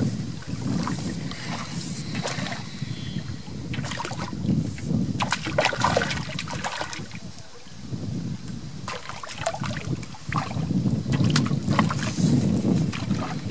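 Wind rumbling on the microphone with water lapping at the bank, and irregular short clicks and rustles from handling the float rod, reel and landing net.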